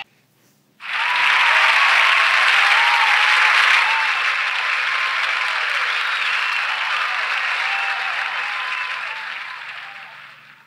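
A crowd applauding, starting suddenly about a second in and fading out near the end.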